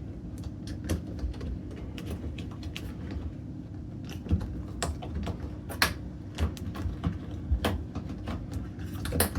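Irregular small clicks and taps of hands working a front-loading washer's rubber door seal onto the sheet-metal edge of the cabinet, over a low steady hum.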